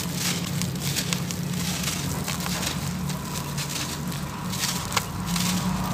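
Hands crumbling a water-soaked sand-cement chunk: a continuous run of gritty crackling crunches as it breaks apart, with one sharper crack about five seconds in, over a steady low hum.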